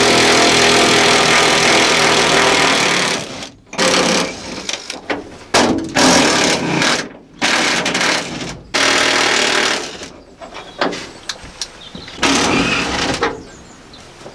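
Cordless power driver runs in one long burst of about three seconds, then in several shorter bursts, undoing the bolts that hold the roof to the body.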